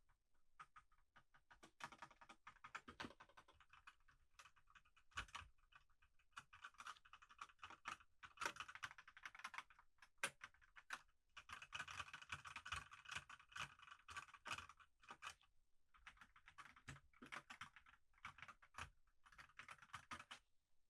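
Quiet typing on a computer keyboard: fast runs of key clicks, broken by short pauses about eleven and fifteen seconds in.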